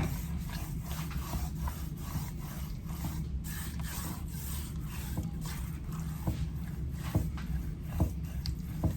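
Hands rubbing dry seasoning into raw pork ribs: soft scattered rubbing and scraping with small clicks over a steady low hum, a few sharper ticks near the end.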